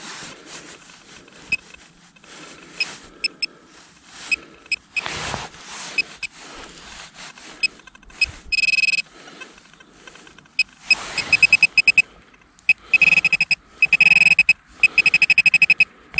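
Handheld metal-detecting pinpointer beeping as it is passed over dug soil: a short steady tone, then runs of fast pulsed beeps in the second half, the pinpointer signalling that it is right on a metal target. Soil being scraped and handled can be heard in between.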